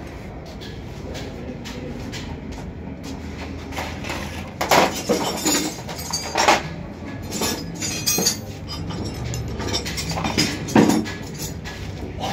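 Metal clinks and clanks as hand tools and parts knock against a small rickshaw engine during assembly. There are several sharp strikes from about halfway in, over a low steady background hum.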